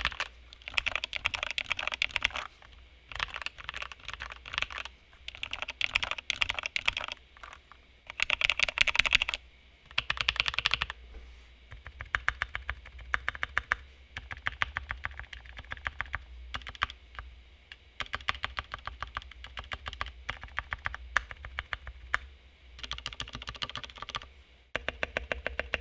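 VortexSeries VX5 60% mechanical keyboard with lubed linear switches, band-aid-modded stabilizers and O-rings between the PCB and case, typed on in a sound test. It goes in quick bursts of keystrokes a second or two long with short pauses, then settles into a steadier run of evenly spaced keystrokes in the second half.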